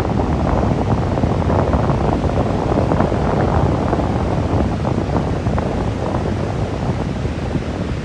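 Wind buffeting the microphone in a loud, steady rush, over the wash of sea surf breaking on the beach.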